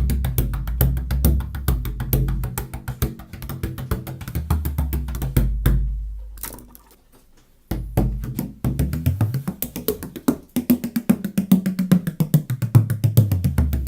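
18-inch Belgarth tunable bodhrán played in a fast run of strokes with a deep, booming ring. The playing stops about six seconds in and the drum rings out and fades. After a short gap the strokes resume, and in the last few seconds the notes ring higher in pitch.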